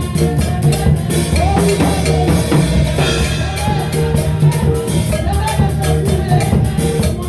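Gospel worship music from a band with a drum kit keeping a steady beat over bass notes, with a melodic line bending above it.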